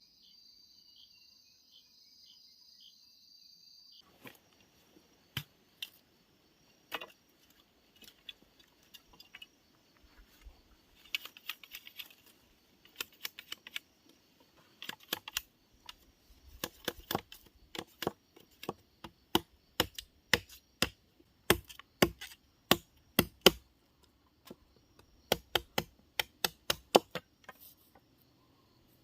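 Sharp taps and knocks from hand tools striking and cutting wood as the trap is made. They come sparsely at first, then about twice a second and louder through the second half. A faint high steady whine with light ticks runs for the first few seconds.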